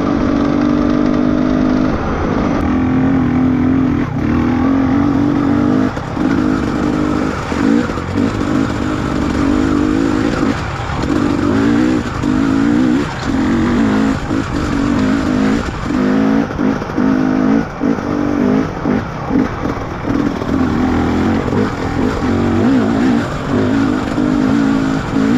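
Trail motorcycle engine running while riding, its note dropping away and picking back up again and again as the throttle is rolled off and on.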